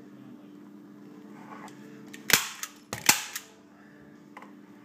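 Arrow staple gun firing twice, about three-quarters of a second apart: two sharp snaps, each followed by a lighter click, over a faint steady hum.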